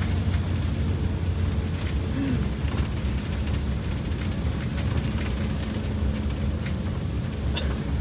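Detroit Diesel 8V92TA two-stroke turbocharged V8 diesel, freshly fitted with four new pistons and liners, running under way in the bus at almost 40 mph. Heard from inside the cab as a steady low drone mixed with road noise.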